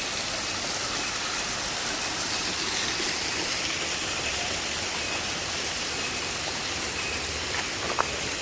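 Waterfall heard close up: a steady, even rush of falling water, with one short click near the end.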